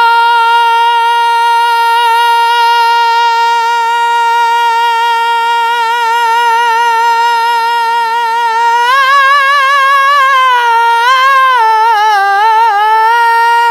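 A male nautanki singer holds one long, high sung note for about nine seconds, then breaks into wavering ornaments before settling back on the same note.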